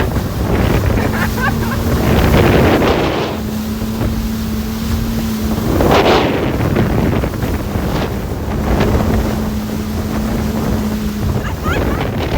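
Jet ski engine running on the water, its steady drone coming and going, with splashing spray and wind buffeting the microphone.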